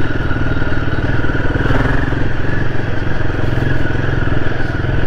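Royal Enfield Himalayan 450's single-cylinder engine running at a steady speed under way.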